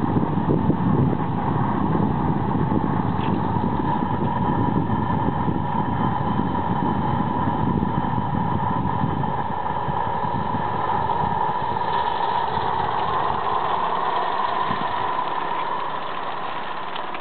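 Live-steam garden-scale model locomotive running slowly along the track, giving a steady hissing rush with a held tone through it. The low rumble underneath fades out about ten seconds in.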